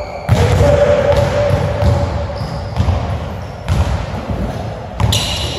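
A basketball bouncing on a hardwood gym floor, with a sharp thump about once a second.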